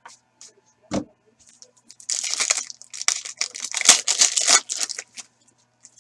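A foil trading-card pack being torn open and its wrapper crinkled, a dense run of quick crackling rips for about three seconds, with a soft thump about a second in.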